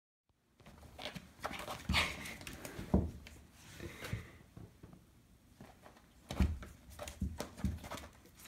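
After a brief silence, a kitten playing on a tile floor and pet bed: irregular thumps and scrabbling, the loudest knocks about two, three and six and a half seconds in.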